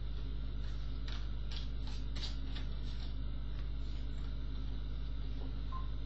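Tarot cards being handled and drawn from the deck: an irregular run of light card clicks and flicks between about one and three seconds in, over a steady low hum.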